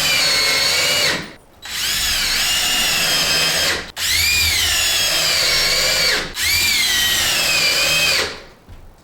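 Power drill running in four runs of about two seconds each with short breaks. The motor's pitch sags and recovers as it loads up, as in driving screws into wood.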